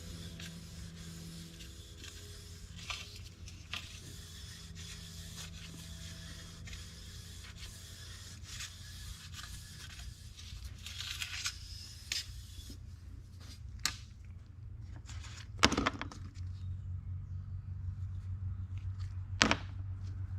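Scraping and rubbing on stainless car trim being cleaned by hand, over a steady low hum, with two sharp knocks in the last few seconds.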